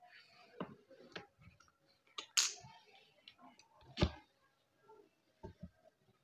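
Light clicks and taps from a watercolour paintbrush being worked and handled on the paper and painting surface. A brief swish comes about two and a half seconds in, a sharper knock about four seconds in, and two soft thumps near the end.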